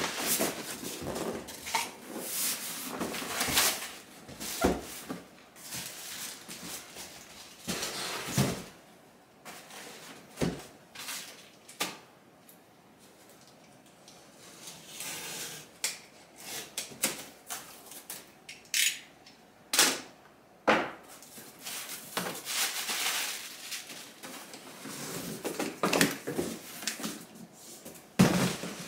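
Cardboard shipping boxes being handled and opened: cardboard scraping and rustling, flaps pulled back, and sharp knocks. Near the end a hard-shell guitar case is pulled out of its box.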